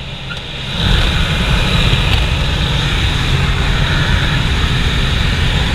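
Small jump plane heard from inside the cabin: a steady engine and propeller drone, then about a second in a sudden jump to a loud rush of wind and engine noise, as the exit door is opened in flight.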